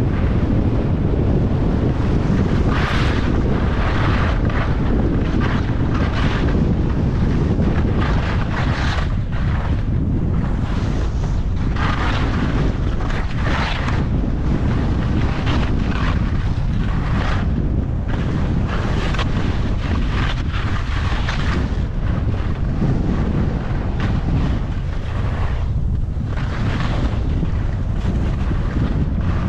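Wind buffeting an action camera's microphone during a descent of a ski run. Edges scrape on hard snow at each turn, about once a second.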